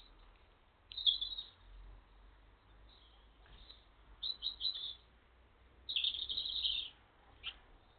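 Small garden birds chirping in short, quick notes, with a denser run of chirps about six seconds in.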